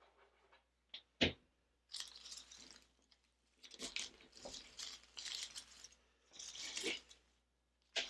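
Artificial greenery stems and leaves rustling and scraping against a grapevine wreath as they are pushed in and arranged, in three spells of a second or two each. Two sharp clicks come about a second in.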